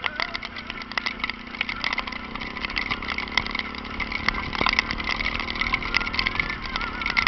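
Honda NX4 Falcon 400 single-cylinder motorcycle engine running steadily, getting slowly louder, with many sharp crackles over it.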